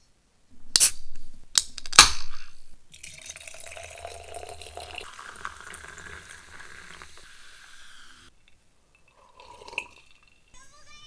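A few sharp glassy clinks and clatters, then hard cider poured over ice into a glass mason-jar mug, a fizzing pour of about five seconds that stops sharply, and a short sip near the end.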